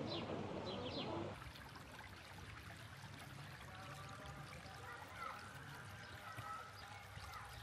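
Shallow stream running over stones, a steady rush of water. Birds chirp briefly in the first second, before the sound changes to a steadier, quieter rush.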